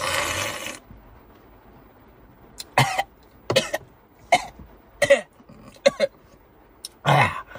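A man sipping a drink from a small liquor glass with a loud, noisy slurp, then coughing in short separate fits, about seven times, as the drink catches in his throat, ending in a longer throaty cough or groan.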